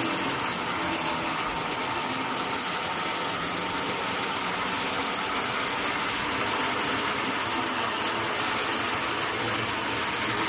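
Print-shop machinery running steadily while printed vinyl wrap film winds onto a take-up roll: an even mechanical hum with a hiss and a faint steady tone, unchanging throughout.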